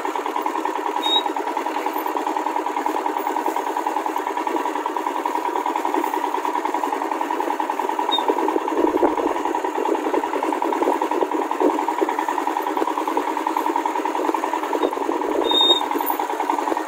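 Royal Enfield Himalayan's single-cylinder engine running steadily at low speed, heard from the rider's seat as it pulls along a grassy dirt trail.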